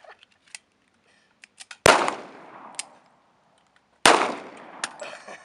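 Two gunshots about two seconds apart, each sharp and loud and trailing off over about a second, with a few faint ticks between them.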